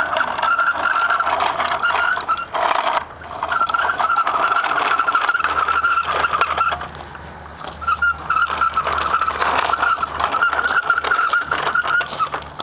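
Toy dump truck pushed along a concrete sidewalk, its wheels rolling and rattling on the concrete, with two short pauses when it stops.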